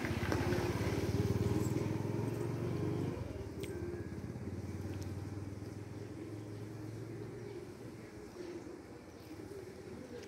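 A motor vehicle engine running off-camera, loudest in the first three seconds and then fading away over the next several seconds, as if passing and moving off.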